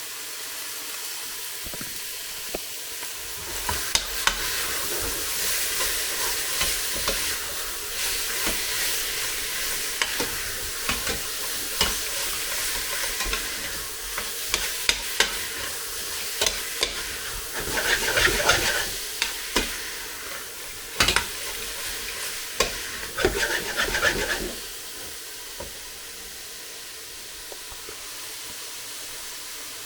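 Chicken pieces sizzling as they fry in a pan, stirred and scraped with a utensil, with scattered knocks against the pan. The stirring stops about 24 seconds in, leaving only the steady sizzle.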